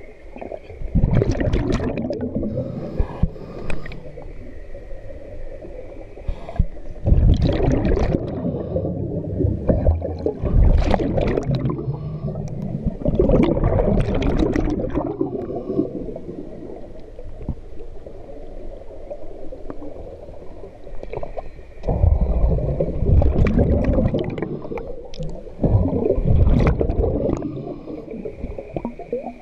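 Scuba regulator breathing heard underwater: several bursts of exhaled bubbles rumbling and gurgling, every few seconds, with quieter stretches between breaths.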